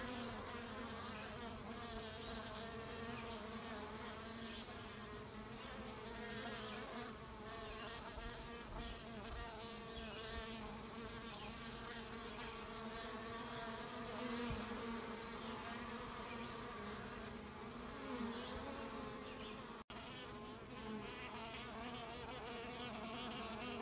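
Honeybees buzzing at a hive entrance: a steady, wavering hum of many bees flying close by, broken for an instant near the end.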